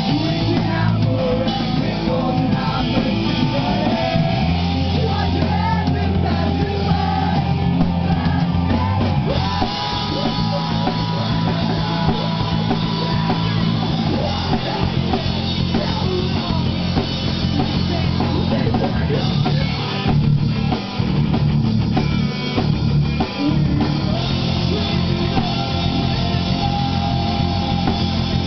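Rock band playing a song: drum kit, electric guitars and bass, loud and continuous.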